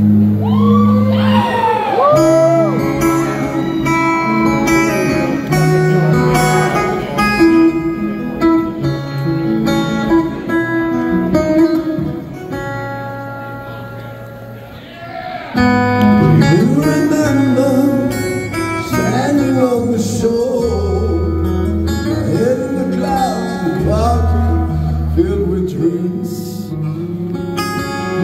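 Live rock band music led by a double-neck electric guitar playing a clean, ringing arpeggiated intro with gliding notes. The music drops away about halfway through, then swells back in.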